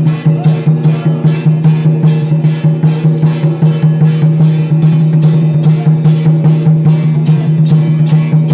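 Temple procession music: even, rapid percussion beats, about three to four a second, over a steady held low tone.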